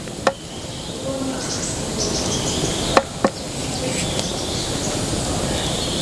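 Sharp knocks of a metal camping pot and its wire bail against a wooden pot hook as the pot is hung over a wood fire: one just after the start and two in quick succession about three seconds in. A steady hiss runs under them, with birds chirping.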